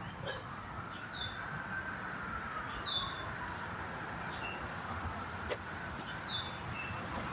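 Outdoor background with short high bird chirps repeating every second or so, a faint tone that rises and falls slowly, and a few sharp clicks, the loudest about five and a half seconds in.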